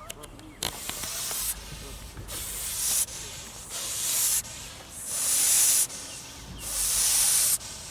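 A goose hissing at someone approaching its goslings: a defensive warning to keep away from the brood. The hisses come about every second and a half, each lasting about a second and swelling as it goes.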